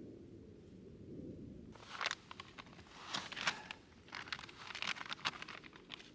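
Rustling and crunching handling noise: irregular crinkles and sharp clicks begin about two seconds in and carry on, over a low steady rumble.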